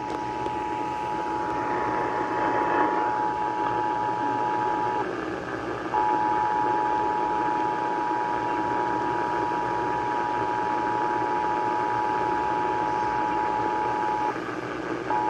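Emergency Alert System attention signal: the steady two-tone alarm (853 and 960 Hz together) received over AM radio, with a constant hiss of static beneath it. The tone drops out briefly twice, about five seconds in and again near the end, each time coming back.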